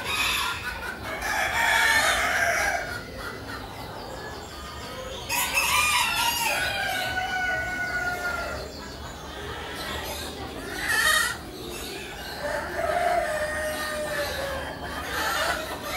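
Caged show chickens calling: roosters crowing several times, one long crow about five seconds in, with hens clucking.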